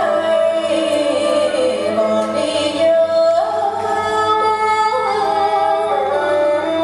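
A woman singing a slow traditional Vietnamese melody, with long held notes that step and slide between pitches, as music for the water puppet theatre.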